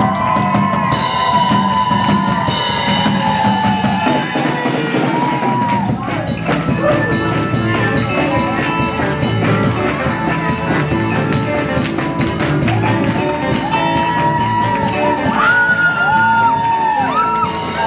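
A live band with drum kit and electric bass plays an entrance number. Held notes open it, and the drums come in with a steady, even beat about six seconds in.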